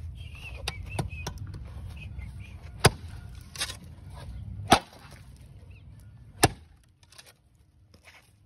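A homemade axe made from a saw blade pegged into a wooden handle chopping into a tree trunk: a few light knocks, then three hard strikes about a second and a half apart.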